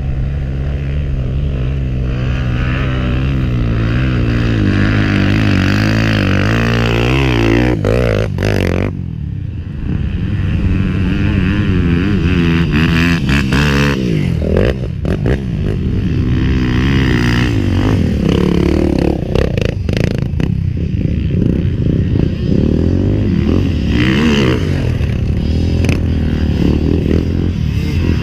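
Dirt bike engine running under way, its pitch climbing as it accelerates through the first several seconds. It dips briefly about eight seconds in as the throttle comes off, then pulls again with revs rising and falling for the rest of the time.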